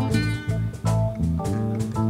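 A rock band playing live, an instrumental passage with guitar over a steady beat.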